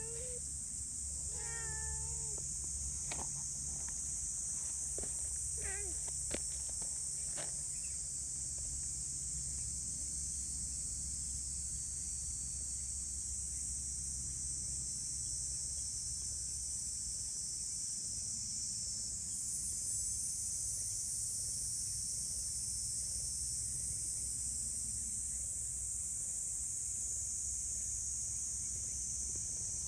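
A tabby cat meows twice in the first two seconds and gives a shorter meow about six seconds in, over a steady, high-pitched insect drone that runs throughout and grows fuller about two-thirds of the way through.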